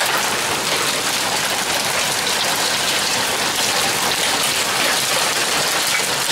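Steady rain falling and pattering on the grass, paving and nearby surfaces, an even hiss that holds level throughout.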